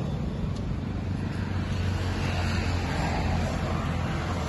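A steady low rumble of background noise with a low hum running under it.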